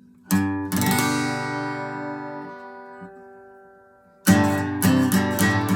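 Acoustic guitar: a chord strummed twice and left to ring, fading away over about three seconds, then steady rhythmic strumming starts about four seconds in.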